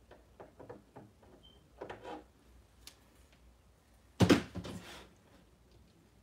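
Small objects being handled on a craft table: light clicks and a rustle, then a sharp knock about four seconds in, the loudest sound, with a brief rustle after it.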